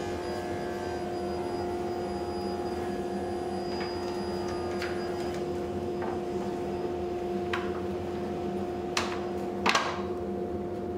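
A steady hum, one low tone with a higher one above it, under a few light wooden clicks and knocks as a walnut tray panel and frame pieces are fitted together on a workbench. The two loudest knocks come close together near the end.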